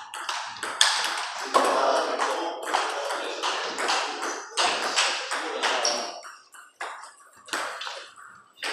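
Table tennis rally: a celluloid ball clicking fast off rubber paddles and bouncing on the table. The quick clicks thin out after about six seconds into a few scattered bounces.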